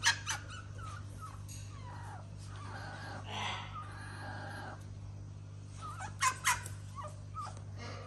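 Pet cockatoo making soft, wavering murmuring calls. Sharp taps come in pairs, once at the start and again about six seconds in.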